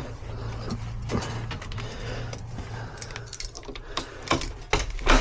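Sharp clicks and clacks of a door latch and handle mechanism being worked, coming more often in the second half. Under them runs the steady low drone of a bathroom extractor fan.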